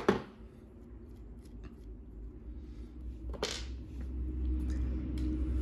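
Hand-tool and small-part handling on a workbench while a screw is undone on a model engine's clutch: a sharp click right at the start, a few faint ticks, and a brief scraping rasp about three and a half seconds in, over a low steady hum.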